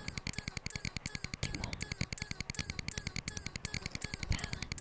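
Glitchy electronic music: a fast, even rhythm of sharp clicks over a pulsing low end, with small repeating chirps.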